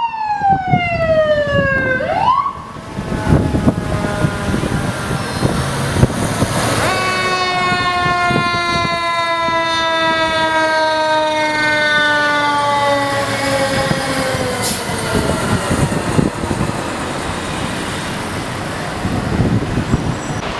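Fire engine sirens. A wail falls in pitch, swoops back up briefly and cuts off about two and a half seconds in. From about seven seconds a second siren tone falls slowly in pitch and dies away over about eight seconds, over the steady running of the trucks.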